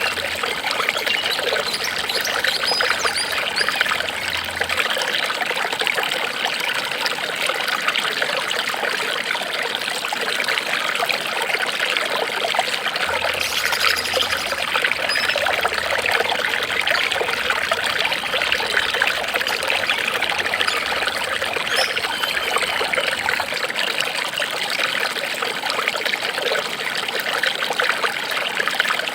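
Water trickling and babbling steadily, like a small stream running over stones.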